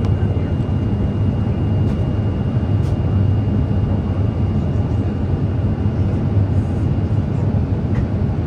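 Steady cabin noise inside an Airbus A350-900 airliner in flight on descent: an even, low rumble of airflow and engines. A faint steady high tone runs over it and stops near the end.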